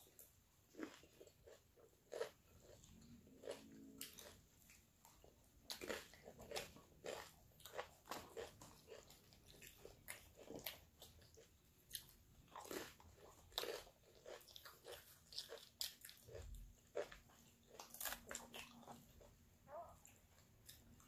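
Close-up chewing and biting of crunchy fast food, tortilla chips from a taco salad and fried chicken nuggets, with many short, irregular crunches and mouth sounds.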